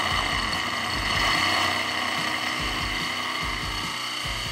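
DeWalt cordless drill running steadily with a masonry bit, the bit grinding into a glazed ceramic floor tile to enlarge a pilot hole.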